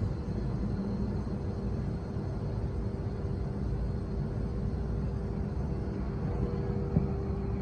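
Steady low outdoor rumble with a constant machinery hum running through it, and a faint click near the end.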